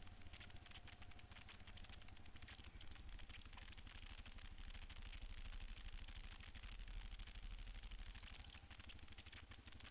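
Quad (ATV) engine running as it rides a rough dirt trail, heard faintly through its onboard camera, with clatter and rattling from the bumpy ride.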